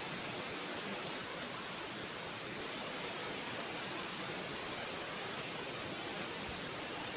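Steady, even hiss of background noise with no distinct events; the monkeys make no audible calls.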